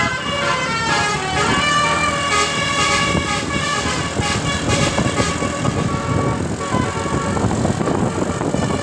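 Basuri telolet bus horn playing a melody of quick stepped notes. About five seconds in, the tune gives way to a rougher, noisier rumble with fainter tones.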